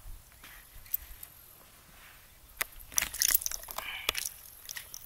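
A small bass being handled and unhooked by hand: fairly quiet at first, then a run of scattered sharp clicks and rattles from about two and a half seconds in.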